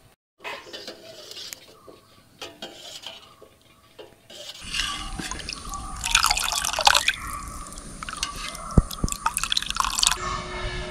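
Thin tomato rasam being ladled up and poured back into a stainless-steel pot, with splashing and dripping. It starts as scattered quiet drips, then grows into steady louder pouring and splashing from about four and a half seconds in.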